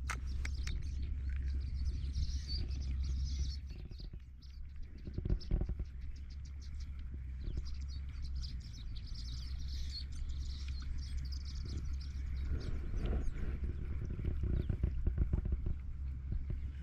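Small birds chirping in short spells over a steady low rumble, with scattered short clicks.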